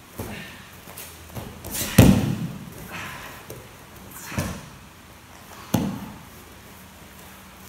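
A series of thuds and slaps as a body and hands hit the mats during aikido throws, breakfalls and a pin, the loudest about two seconds in.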